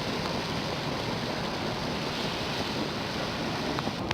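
Hydrothermal steam vent and boiling hot pool giving off a steady rushing hiss.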